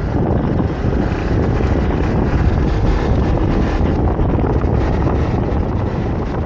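Steady wind rush over an action camera's microphone on a moving motorcycle, with the noise of the motorcycle running along the road underneath.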